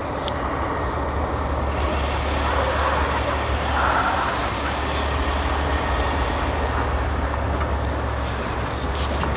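Semi truck's diesel engine running with a steady low drone, swelling slightly about four seconds in.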